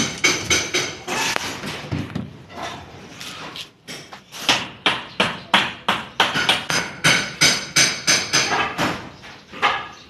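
Hammer strikes during house demolition, rapid and regular at about three a second, each with a short ringing note. They ease off into softer knocks about a second and a half in, then resume about four seconds in.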